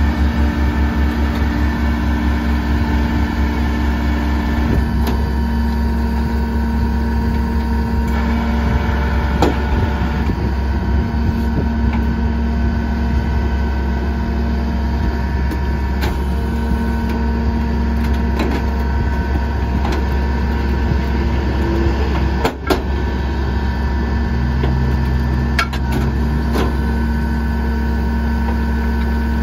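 Leach Sanicruiser rear-loader garbage truck's engine and hydraulics running steadily as it hoists and tips a steel dumpster into the hopper, with a few sharp metallic clanks, the loudest about three-quarters of the way through.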